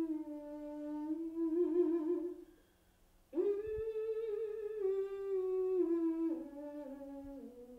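A voice humming a slow, wordless melody: long held notes that sink step by step, with a short break about two and a half seconds in.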